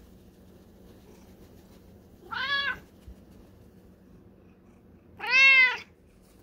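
Domestic cat meowing twice, about two seconds in and again near the end. Each meow rises and then falls in pitch, and the second is louder and longer.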